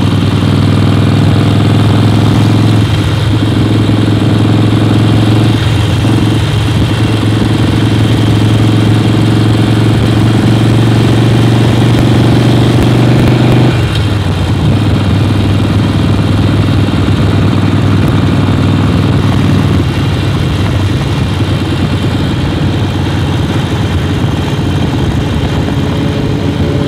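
Motorcycle engine running steadily while riding. About halfway through, the strong engine note drops away and gives way to a more even rushing sound.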